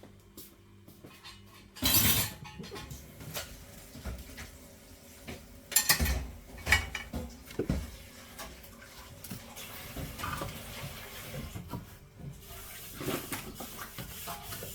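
Pots, dishes and cutlery clattering as they are handled, with loud knocks about two seconds in and again around six seconds in.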